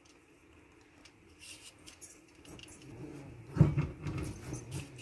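Metal fork clicking and scraping against a baked potato and a wooden cutting board while the skin is peeled off, in quiet room tone. A run of louder, dull handling bumps starts about three and a half seconds in.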